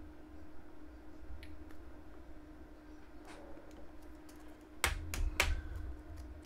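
Sharp clicks of a coin and plastic coin flips being handled: one light click about three seconds in, then three louder clicks close together about five seconds in, over a faint steady hum.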